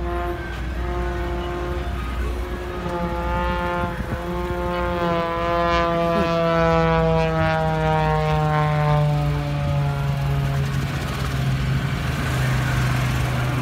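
Engine and propeller drone of a single-engine aerobatic plane flying past, its pitch falling slowly over several seconds as it goes by.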